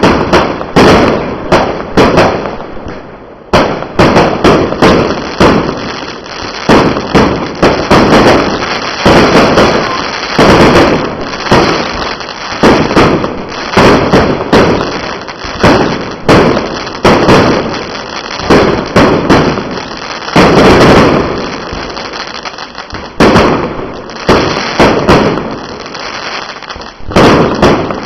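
Fireworks going off in a rapid barrage of bangs, often one or two a second, over continuous crackling, with a brief lull about three seconds in.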